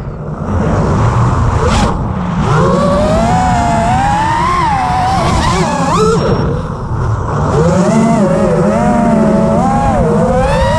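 Brushless motors of a 6S FPV racing quadcopter whining in flight. The pitch rises and falls continually as the throttle changes, over a rushing low noise.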